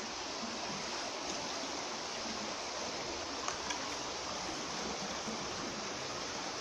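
A fast-flowing river in flood, rushing steadily, with a couple of faint clicks about halfway through.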